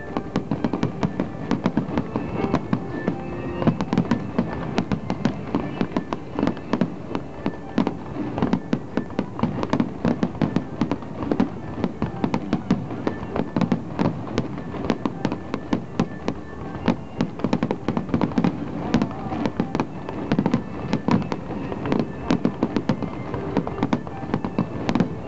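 Fireworks display: aerial shells bursting in a rapid, unbroken string of bangs and crackles, with music playing underneath.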